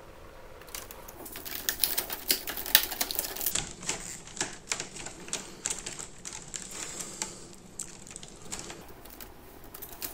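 Hands handling wires and plastic parts inside an orange plastic junction box: irregular clicks, taps and light knocks as the cables and a relay are pushed into place, busiest in the first few seconds.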